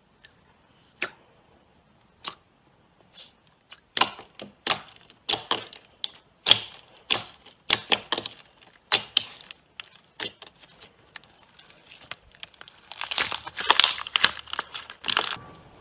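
Clear slime with plastic charms being squeezed, poked and pressed by hand, giving sharp, irregular pops and clicks. They are sparse at first, come thick and fast from about four seconds in, and run together into a dense burst of crackling near the end.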